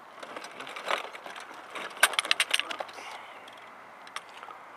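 Manual wheelchair wheels rolling over loose gravel, the stones crunching and clicking under the tyres, with a dense run of sharp clicks about two seconds in.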